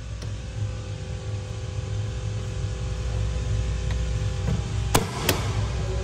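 Two sharp plastic clicks, a fraction of a second apart, about five seconds in, as a Cybertruck aero wheel cover is pressed onto the wheel. A steady low hum runs underneath.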